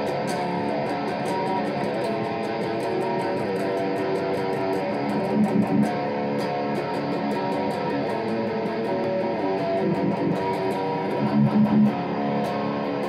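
Electric guitar playing a fast metal lead solo, a rapid run of picked notes.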